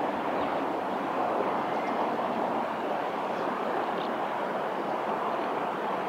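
Steady outdoor rushing noise that stays even throughout, with one faint short high sound about four seconds in.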